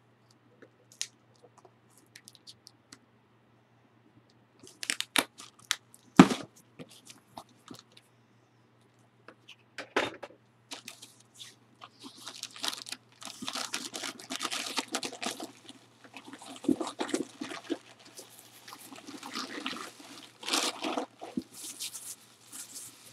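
Crumpled packing paper being handled and unwrapped. A few scattered crackles and a sharp crack about six seconds in are followed by near-continuous crinkling and tearing of paper through the second half.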